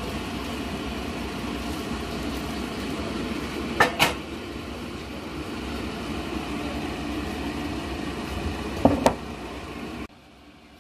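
A steady low hum, broken by two pairs of sharp knocks, about four seconds in and again near nine seconds: dishes knocking together as seasoned eggplant is tipped from a metal mixing bowl onto a ceramic plate. The hum cuts off suddenly shortly before the end.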